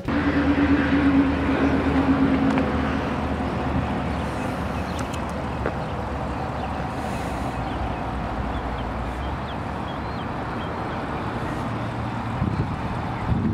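Chevrolet Camaro SS's 6.2-litre LT1 V8 running as the car rolls past, loudest in the first few seconds with a slightly falling engine note, then settling into a steady low rumble. Wind noise on the microphone throughout.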